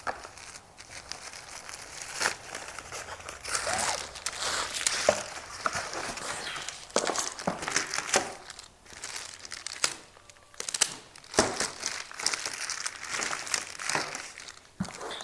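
Crinkling and rustling of a nylon storage bag and the clear plastic wrap around a bundle of chimney-sweep rods as they are unpacked and handled, with a few light knocks.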